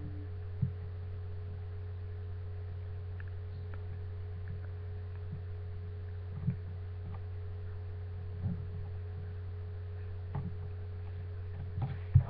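Steady low hum, with a few short, soft knocks scattered through, the sharpest just before the end.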